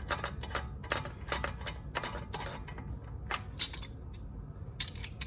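Ratchet wheel brace clicking in short runs of quick clicks as the lug nuts on a spare wheel are snugged up, with light metallic clinks of the socket on the nuts.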